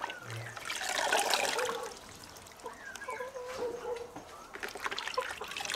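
Water sloshing and splashing in a bucket as hands swish squash blossoms through it and lift them out dripping, loudest about a second in, with light drips near the end.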